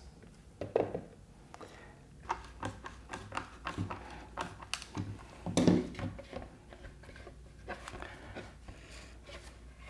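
Scattered light clicks, taps and knocks of hard 3D-printed plastic casing parts being handled and screwed together with a hand screwdriver.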